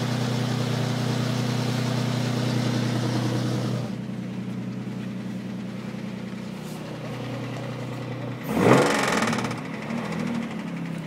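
Infiniti G35's 3.5-litre V6 idling, its sound getting quieter about four seconds in, then revved once sharply about eight and a half seconds in before settling back to idle. The engine carries the noise the owner questions as either engine knock or timing chain tensioner tapping.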